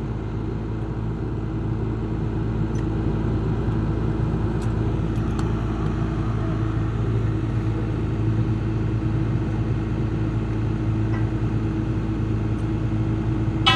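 Engine of a horizontal directional drilling rig running steadily with a constant low hum, with a few faint clicks about halfway through.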